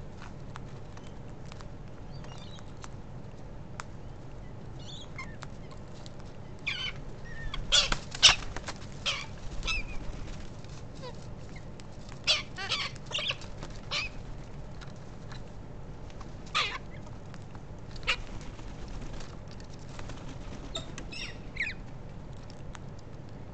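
Galahs squabbling at a seed feeder, giving short screeching calls in two clusters, one about a third of the way in and another a little later, then a few single calls. Fainter thin chirps are heard before and after the clusters.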